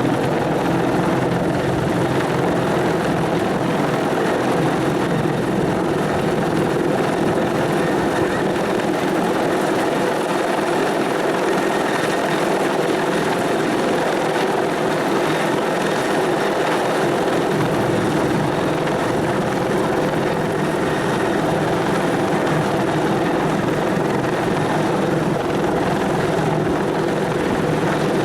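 Bell 412 helicopter's twin turboshaft engines and rotors running, a loud, steady, unbroken sound.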